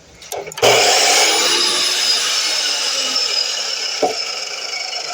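DeWalt miter saw switching on about half a second in and running with a steady high whine that slowly fades, with a short knock near the fourth second.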